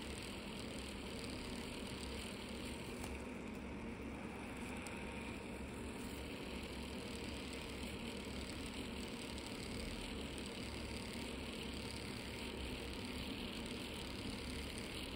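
Small electric podiatry drill running steadily as it grinds down a corn on the sole of the foot, an even mechanical hum and hiss.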